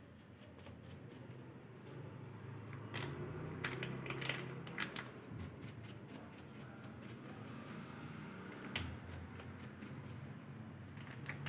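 A spice sachet being shaken and tapped over a steel bowl to pour masala powder onto chicken: faint crinkling of the packet with a few sharp taps, a cluster about three to five seconds in and another near nine seconds.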